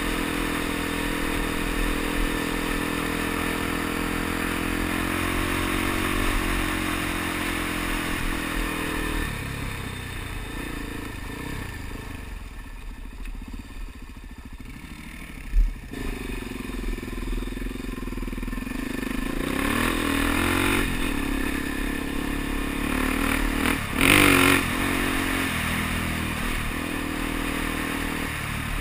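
Suzuki DR-Z dual-sport motorcycle's single-cylinder engine running under way, with wind and road noise. About a third of the way in the engine drops back to a quieter, slow run, with a single thump about halfway through. It then picks up again with rising revs, and there is a brief loud rush near the end.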